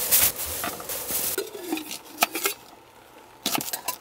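Cups and ice clinking and clattering as highball drinks are being prepared: a rustle at the start, then scattered sharp clinks, some ringing briefly, with a quick cluster near the end.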